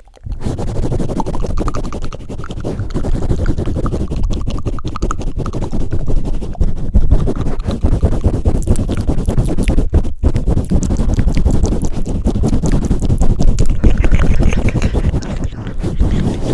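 Hands pumping and swirling over a microphone's fuzzy windscreen: a continuous close rubbing rumble full of small crackles, with short breaks about ten seconds in.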